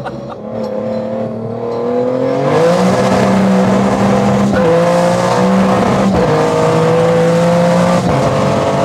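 Toyota GR Yaris's turbocharged three-cylinder engine under hard acceleration, heard from inside the cabin: the engine note rises over the first few seconds and then holds high, with two brief breaks about four and a half and six seconds in, typical of quick upshifts. The run ends in wheel spin.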